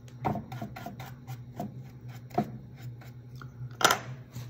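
Handling noises of a wax brush and a wooden tray on a wooden desk: scattered light taps and clicks, with one sharper knock near the end, over a steady low hum.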